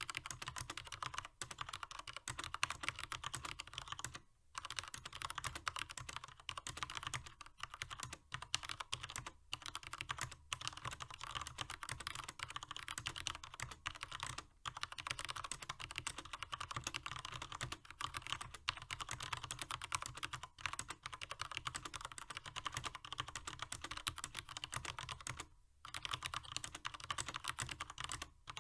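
Fast continuous typing on a SteelSeries 7G mechanical keyboard with stock Cherry MX Black linear switches, a dense stream of key presses with brief pauses about four seconds in and near the end. The keys sound quite muted on the 7G's chassis.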